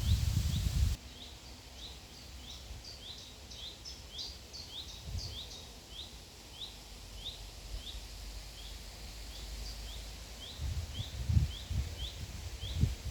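A small bird's short, high chirp repeated steadily about three times a second, with a second, higher twittering call for a few seconds. Low rumbling bumps come in the first second, where they are the loudest sound, and again near the end.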